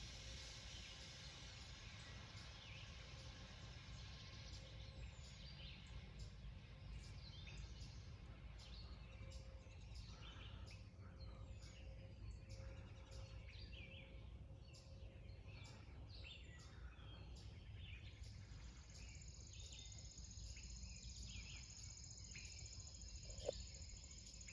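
Faint outdoor ambience: birds chirping over and over above a low steady rumble. A thin, steady high whine comes in about three quarters of the way through, and there is a single sharp click near the end.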